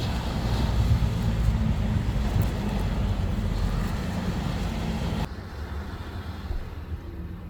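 Wind buffeting the microphone with sea surf behind it, a steady low rumble that drops abruptly about five seconds in.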